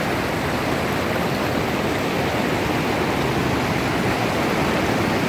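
Mountain river rushing over boulders in whitewater rapids: a steady, even rush of water with no breaks.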